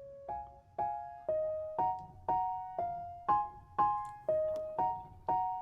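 Background music: a keyboard playing gentle two-note chords, struck about twice a second, each fading before the next.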